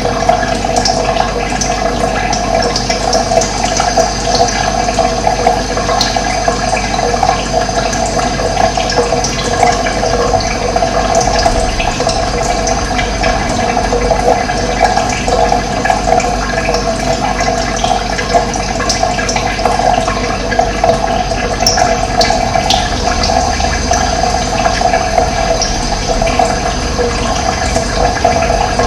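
Running water flowing steadily in an even, unbroken rush.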